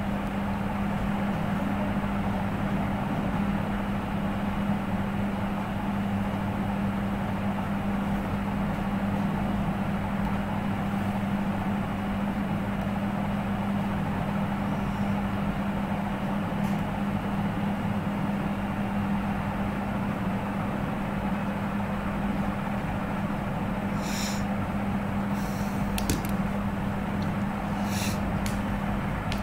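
A steady low hum with an even hiss behind it, unchanging throughout, and a few sharp clicks near the end.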